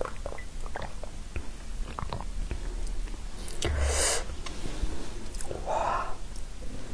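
Close-miked gulps and swallows of a drink, with small wet mouth clicks. Then a breathy exhale about four seconds in, and another shorter one near six seconds.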